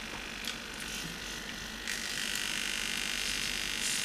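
High-torque metal-geared hobby servos of a robot arm buzzing under load. The buzz becomes louder and steadier about two seconds in.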